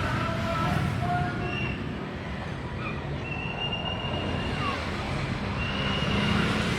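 Street traffic running past with a steady low rumble, with faint voices and a brief high steady tone a little past the middle.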